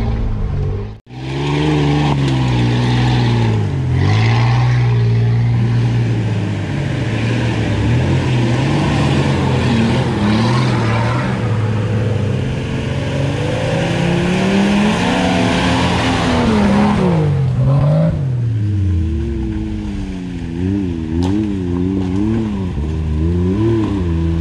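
Off-road vehicle engines revving up and down as they work along the trail. Near the end a Can-Am Maverick side-by-side's engine is blipped rapidly, its pitch going up and down about twice a second as it passes close.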